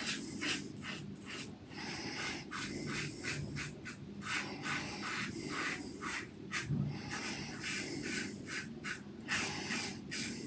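Stainless steel slant safety razor (Yaqi Slope) with a Wizamet Super Iridium blade scraping through three-day stubble under lather in a quick series of short strokes, about two a second, on an against-the-grain pass.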